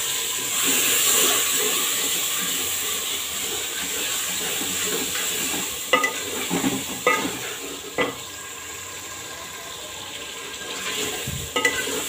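Raw chicken pieces sizzling in hot oil and tomato-onion masala in a metal pot, the searing stage of the curry; the sizzle is loudest at first and eases off over the next several seconds. A spoon knocks and scrapes against the pot a few times around the middle and again near the end as the chicken is stirred.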